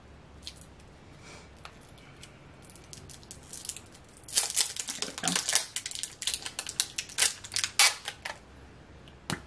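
Plastic clicking and crinkling as a lip crayon sample is worked open by hand: a dense run of quick sharp clicks from about halfway through, then one sharp click near the end.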